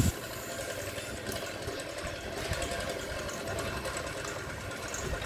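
Homemade pedal drive's toothed belt and pulleys turning, a steady mechanical whirr, with a short knock right at the start.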